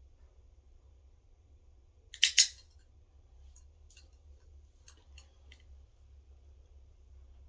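Training clicker pressed and released about two seconds in, a sharp double click that marks the cat's high five, followed by a few faint ticks and taps.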